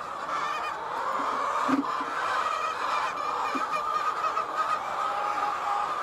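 A flock of white layer hens calling, many overlapping voices in a steady chorus, with a light knock about two seconds in.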